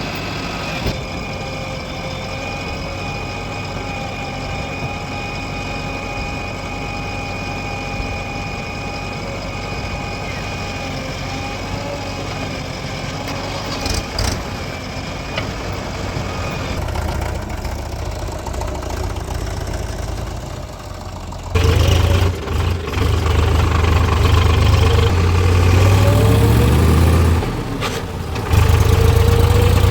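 Diesel heavy-machinery engines running steadily at idle. About two-thirds of the way through, one opens up much louder under load, with a rising whine in the last few seconds.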